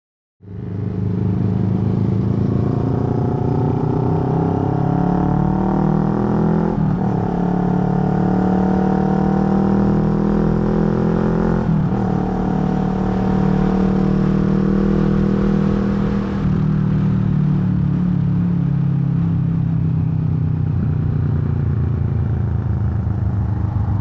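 Kawasaki Vulcan S 649cc parallel-twin motorcycles with aftermarket Arrow and Delkevic exhausts at riding speed. The nearer engine rises in pitch through the gears, with upshifts about 7 and 12 seconds in, then holds a steady cruise and eases off about 16 seconds in.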